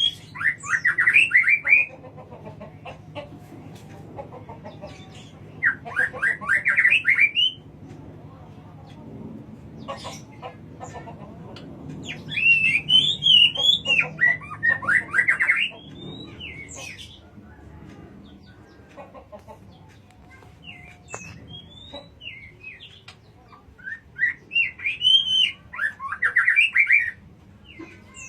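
White-rumped shama singing: four loud bursts of rapid, warbling song phrases, each two to four seconds long, with softer calls between them, over a steady low hum.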